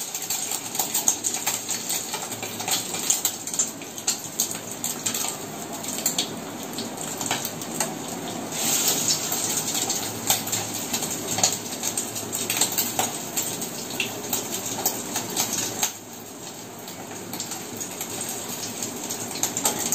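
Egg-dipped, cornflour-coated milk cake pieces deep-frying in a pan of hot oil, sizzling steadily with many small crackles as pieces are lowered in one by one. It drops a little quieter about three-quarters of the way through.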